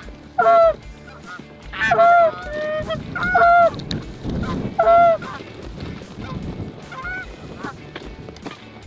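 Canada goose honking: loud, close two-note honks about four or five times in the first five seconds, then fainter honks near the end, with a low rushing noise underneath in the middle.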